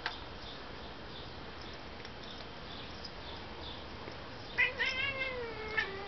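House cat chirping at birds outside the window: a sharp chirp about four and a half seconds in, running into one drawn-out call that drops slightly in pitch near the end.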